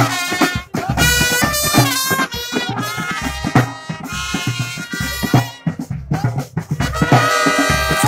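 Band music: horns playing a melody over a drum kit with a steady beat.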